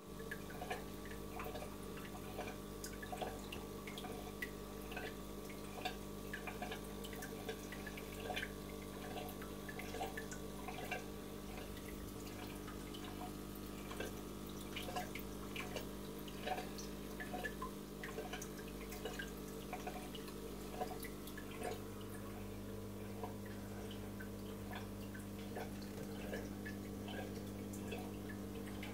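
Aquarium water dripping and trickling: many small, irregular plinks, several a second, over a steady pump hum.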